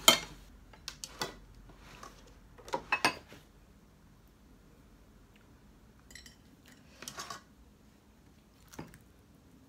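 Plates, bowls and a spoon clinking and knocking as food is handled on a table, in a few scattered short strikes. The loudest comes at the start and a cluster about three seconds in, with fainter ones later.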